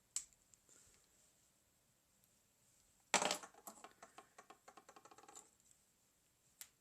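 A small plastic LEGO piece dropped onto a hard surface about three seconds in, bouncing and rattling in a run of light clicks that die away, with single clicks of bricks being handled near the start and the end.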